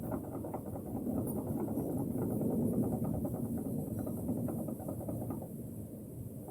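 Strong winter wind gusting through bamboo, a low rushing noise with the leaves and stalks rustling and clattering; the gust eases near the end.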